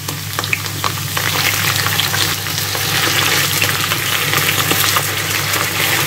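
Potato sticks sizzling and crackling in hot oil in a frying pan, over a steady low hum.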